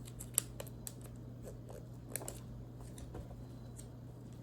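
Plastic rustling and a few short sharp clicks as a sleeved jumbo card is worked into a plastic binder pocket. The loudest click comes about half a second in. A low steady hum runs underneath.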